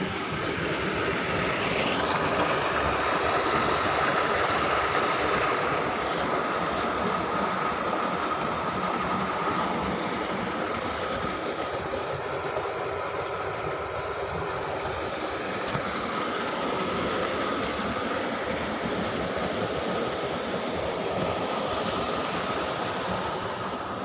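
Steady rushing of river water running between granite boulders, with a faint steady high tone above it.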